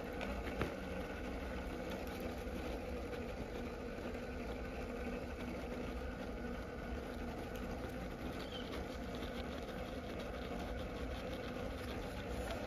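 Axial Capra 1/10 RC rock crawler's Hobbywing Fusion SE brushless motor and geared drivetrain running at slow crawl speed, a steady whirr with gear whine. One sharp click about half a second in.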